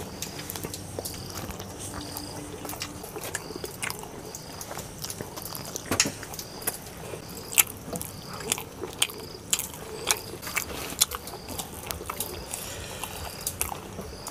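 Close-up eating sounds of a man having roti and egg curry by hand from a steel plate: chewing, with irregular small clicks and taps. A faint high chirp repeats steadily about every two-thirds of a second behind them.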